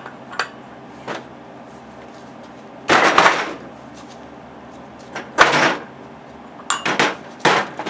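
Clanks and knocks of a breaker bar and socket straining on the flywheel nut of a small Briggs & Stratton engine, the engine and flywheel holder shifting on the stand; the loudest knock comes about three seconds in, with three more near the end. The nut is not coming loose.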